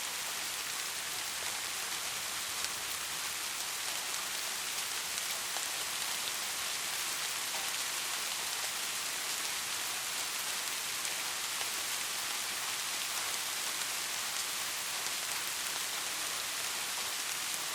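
Steady rain falling, a dense even hiss of many small drops with no thunder.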